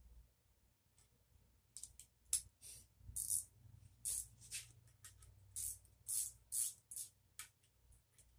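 Hand ratchet clicking in short strokes, about two a second, running connecting rod nuts down snug on their rod bolts.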